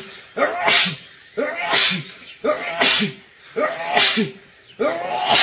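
A man sneezing again and again in a rapid run, about five sneezes roughly a second apart, each a short cry running into a sharp burst.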